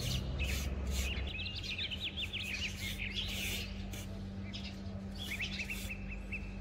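Small birds chirping in quick, repeated bursts of short notes, over soft scraping strokes of a trowel smoothing damp sand.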